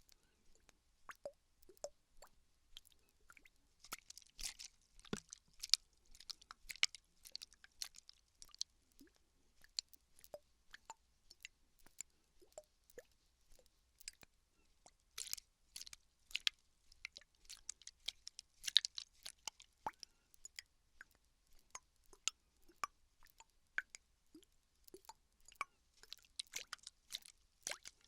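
Plastic water bottle handled close to the microphone: irregular crinkling and tapping clicks, with small plops of the water inside.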